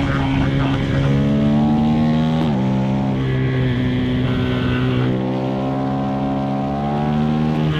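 2025 KTM 390 SMC-R single-cylinder engine with a Stage 2 DNA intake filter, pulling under load with its revs slowly rising. The pitch drops sharply about a third of the way in, typical of a quick-shifter upshift, then climbs again through the second half.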